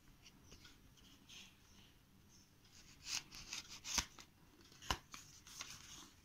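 A folded paper card rustling and crinkling as it is pulled open and unfolded, louder from about three seconds in, with two sharp snaps of the paper, one about four seconds in and one a second later.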